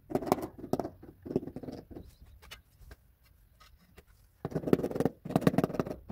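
Rubber mallet tapping a ceramic floor tile down into fresh tile adhesive to bed and level it: quick runs of dull taps, a pause of about three seconds, then another run near the end.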